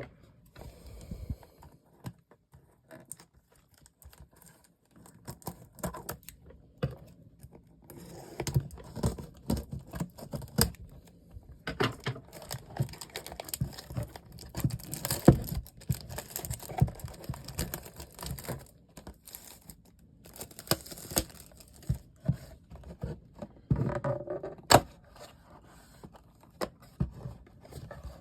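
Hands handling and opening a product box and its packaging: irregular taps, clicks and crinkling, sparse at first and busier from about eight seconds in.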